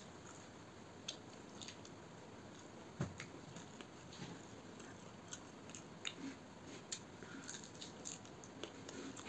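Faint hand-eating sounds: fingers squishing and mixing rice with chicken gravy on a steel plate, with small clicks of fingers and food against the plate, and chewing. One louder knock about three seconds in.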